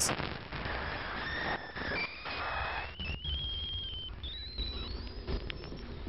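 Cassini RPWS radio and plasma wave data from a ring-plane crossing at Saturn, played as sound: a steady hiss with thin whistling tones that climb in pitch in several steps. These are the rising tones seen after the ring crossing, whose cause scientists are unsure of.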